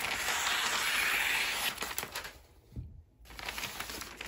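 Scissors sliding through a sheet of wrapping paper in one long cut lasting about two seconds, followed by fainter rustling of the paper.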